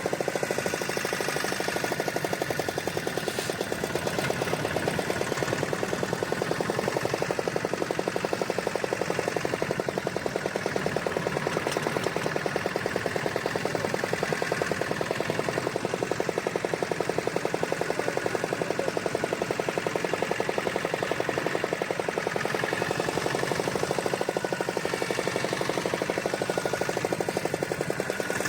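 A fishing boat's engine running steadily, with a fast, even beat of firing pulses.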